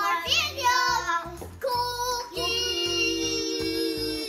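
Young children singing loudly together, holding one long note through the second half, over background music with a steady beat.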